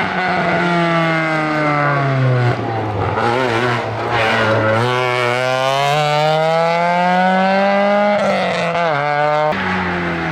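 Opel Kadett E GSi 2.0 four-cylinder engine at full throttle on a hillclimb run. The revs sag, then climb steadily through a gear, with a gear change about eight seconds in. Near the end the sound cuts abruptly to another car's engine.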